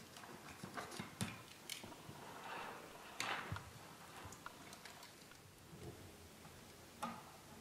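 Faint hand-handling noises: scattered light clicks and short rustles as electrical tape is wrapped around a steel cable, with a sharper click about three seconds in. Another click comes near the end as the cable end is fed into a turnbuckle.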